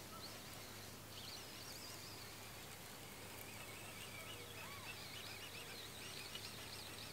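Faint birdsong: quick, warbling chirps starting about a second in and going on throughout, over a steady low background hum.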